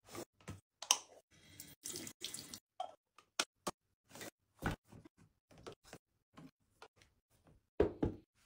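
A string of short handling sounds: a microfibre cloth wiping a metal mesh shelf, and plastic canisters of cotton swabs being set down with small knocks. There is a sharp knock about halfway through and a louder, duller rustle near the end as a cotton rope basket is handled.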